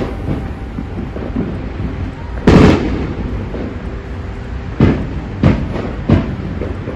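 Fireworks going off: four sudden booms, the loudest about two and a half seconds in and three more close together near the end, over a steady low rumble.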